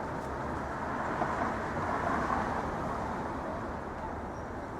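City street traffic: a steady wash of passing vehicles, swelling slightly about two seconds in.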